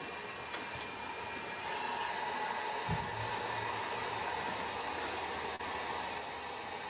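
Steady whirring machine noise with a faint high whine, and a short low thump about three seconds in, after which a low hum joins.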